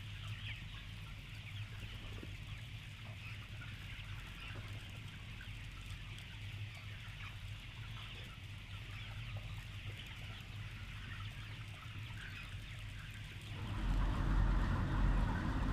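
A crowd of young broiler chickens packed in a shed, many birds peeping and clucking at once over a low steady hum. About 13 seconds in, a louder rushing noise comes in on top.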